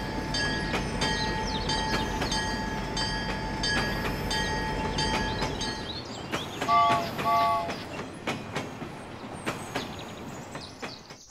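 Toy battery-powered steam locomotive running along a plastic track, its motor whirring steadily with repeated clicks. Two short toots of its whistle sound about two-thirds of the way in.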